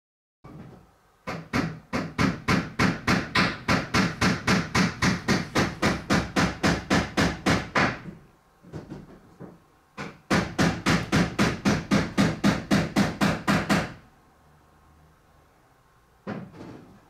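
Carpenter hammering: quick, steady blows, about five a second, in two long runs with a short pause between, then one more knock near the end.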